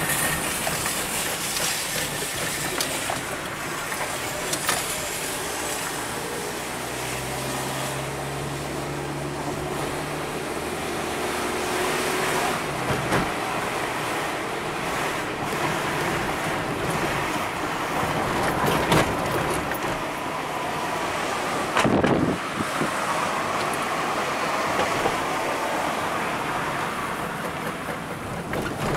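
Car driving slowly on town streets, heard from inside the cabin: a steady mix of engine and tyre noise with a few short knocks. A low engine hum shows for a few seconds in the first half, and there is a brief louder noise about three quarters of the way through.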